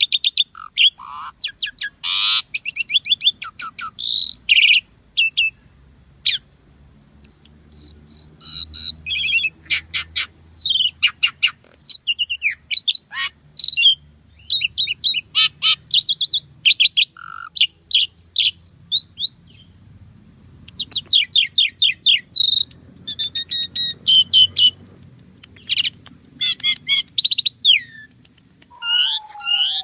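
An Asian pied starling (jalak suren) singing in full song: a long, varied string of chirps, whistles and fast trills, with short pauses between phrases.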